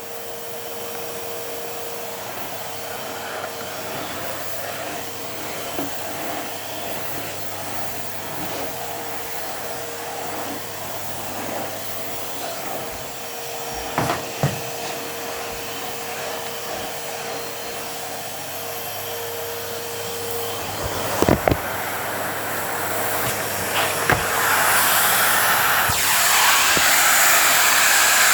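Numatic Henry HVR200-12 cylinder vacuum cleaner running steadily while vacuuming, with a few knocks of the nozzle or tube. The airflow grows louder and more hissing in the last few seconds.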